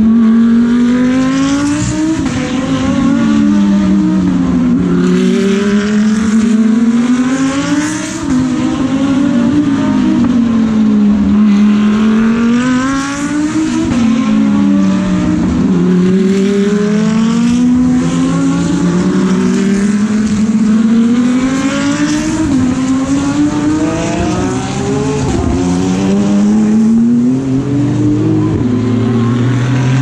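GT3 race car engines driving past one after another, several at once. Each engine note climbs in pitch and drops sharply on the upshift, over and over.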